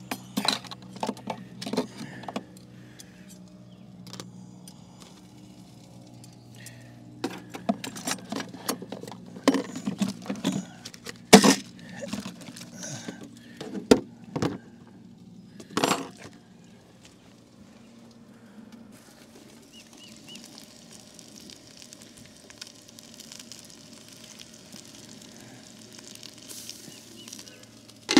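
Scattered clinks and knocks of cooking gear being handled, then a faint steady sizzle of a pancake frying under the glass lid of an electric skillet. Right at the end there is a sharp clink as the lid is lifted.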